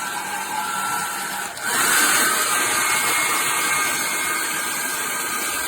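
Conair Cord-Keeper 1875 W travel hair dryer running with a steady blowing whir, switched about one and a half seconds in to a higher, louder setting with more hiss.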